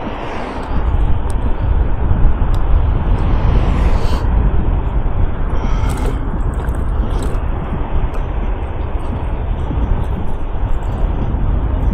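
Steady low rumble of wind on the microphone with tyre and road noise from a Jueshuai electric scooter being ridden.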